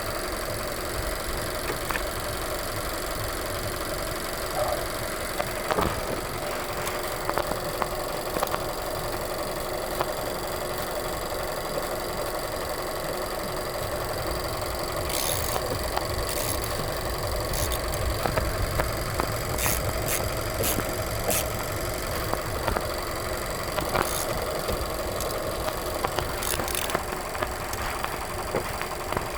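Nissan Sentra's four-cylinder engine idling steadily after a new battery has been installed, with a few sharp clicks in the second half.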